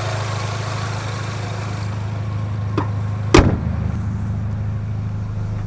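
Honda H22 inline-four engine idling steadily. About three and a half seconds in, the hood is slammed shut with one loud bang, just after a lighter click.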